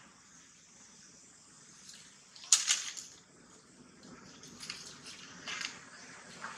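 A few short dry crackles and scratches from a young monkey picking at flaking tree bark, the loudest about two and a half seconds in, with smaller ones near the end.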